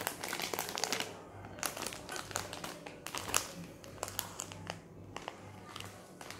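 Clear plastic bag crinkling in irregular bursts as a packed stack of dried brown-rice crackers inside it is picked up and handled.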